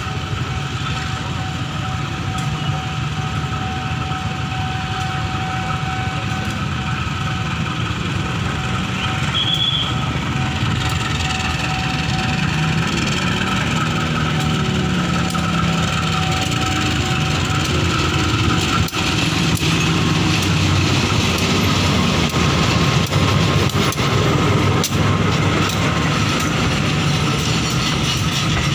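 Diesel locomotive hauling a passenger train, approaching slowly with its engine running and growing louder from about halfway through, the coaches starting to roll past near the end.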